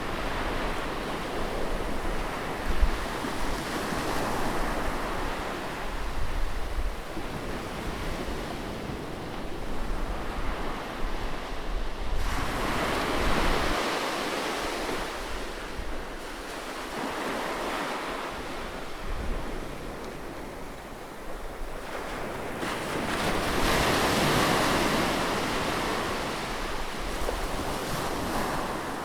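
Sea waves breaking close by on a shore, a continuous wash that swells and ebbs every several seconds, with a low wind rumble on the microphone.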